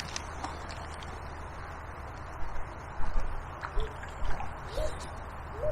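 Steady outdoor rushing of water and wind with a few low thumps, and from about halfway a dove cooing in a repeated series of short, soft, low notes.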